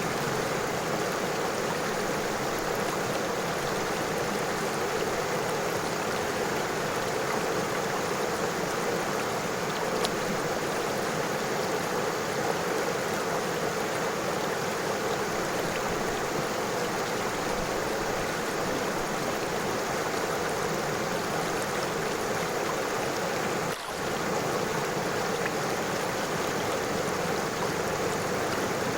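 River water flowing steadily over stones, a constant rushing and babbling. The level dips for a moment about three-quarters of the way through.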